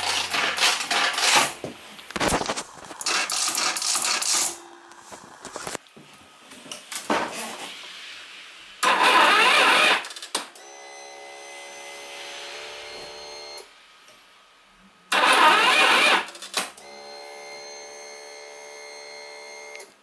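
Yamaha Majesty 125 FI scooter being cranked over again and again without starting. Each try is a second or so of harsh grinding from the belt drive, the unfamiliar 'gyumo-gyumo' noise that sounds like a snapped drive belt tangled in the CVT. After the later tries comes a steady whine lasting a few seconds.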